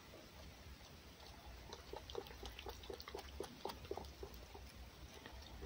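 Red fox eating egg from a plate: faint quick wet licking and chewing smacks, several a second, in an irregular run.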